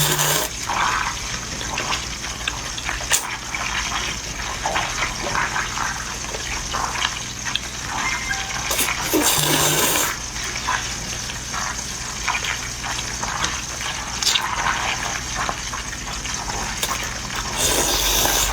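A person slurping and chewing noodles, with wet mouth and slurp noises that come in irregular bursts and swell louder a few times.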